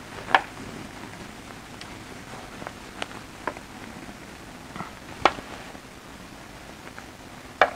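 Handling of a whiteboard eraser against a whiteboard: a few separate sharp light knocks and clicks, about five in all, spread through a quiet room.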